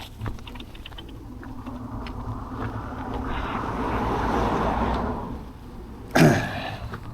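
A car passing by, its noise swelling over a few seconds and then fading. About six seconds in comes a short, loud sound that drops sharply in pitch.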